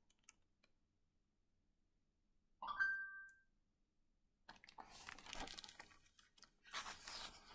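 Mostly near silence, with soft paper rustling and handling noise from a picture book in two short spells in the second half. A brief faint high note sounds about three seconds in.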